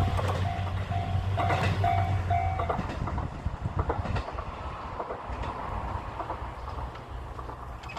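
Train running away over the level crossing, its wheels clicking over rail joints and fading. A level-crossing bell dings about twice a second and stops about three seconds in.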